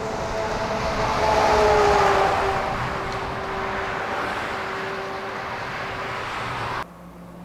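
Heavy truck passing at speed: a rush of tyres and engine with a steady hum that swells about two seconds in, its pitch dropping slightly as the truck goes by. The sound cuts off abruptly near the end.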